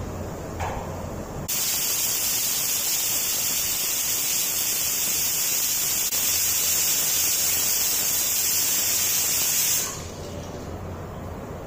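Water spraying under pressure from the tube fitting on an RO purifier's pre-filter housing: a steady hiss that starts about a second and a half in and cuts off suddenly after about eight seconds.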